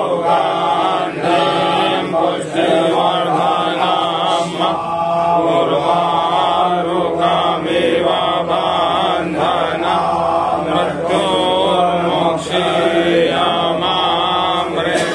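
Voices chanting Hindu devotional mantras, a steady sung recitation going on phrase after phrase.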